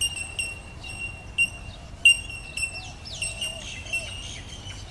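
Birds giving short, high, repeated chirps at an uneven pace, with a few quick falling notes a little after three seconds in.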